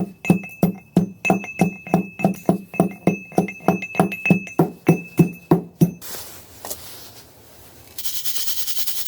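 Pestle pounding roasted gold ore in a mortar, about three hard strikes a second, each ringing; the rock is hard, like trying to smash metal. The pounding stops about six seconds in.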